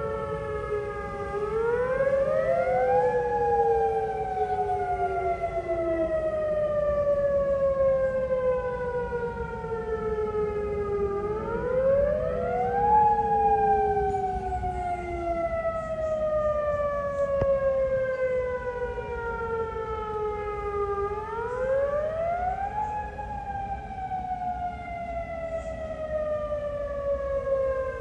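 Several outdoor tornado warning sirens wailing together in a scheduled monthly test. Each wail rises quickly over a second or so, then falls slowly for several seconds, repeating about every ten seconds, with the sirens overlapping out of step.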